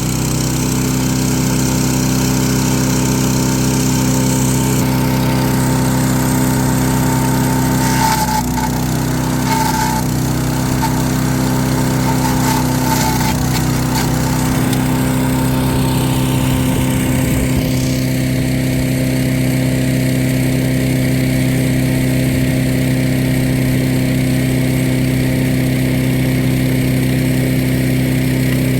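Gas-engine wood chipper-shredder running steadily at a constant engine speed, with a few brief cracks and snaps about a third of the way in as material is fed through.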